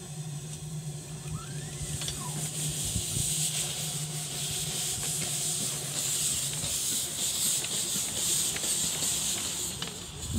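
Miniature steam locomotive hissing steam: a steady hiss that builds about two seconds in and stops near the end.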